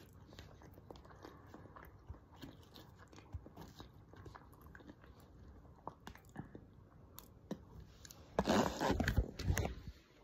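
Close-up chewing and biting with small mouth clicks and metal spoon taps. About eight seconds in, a louder noisy stretch lasts about a second and a half.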